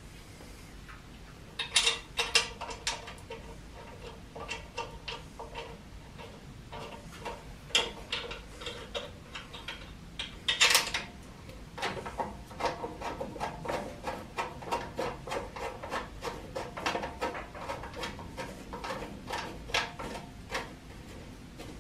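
Gas tank being shifted and knocked about on its steel tube bracket: a long run of sharp knocks and rattles, the louder ones leaving the metal ringing briefly.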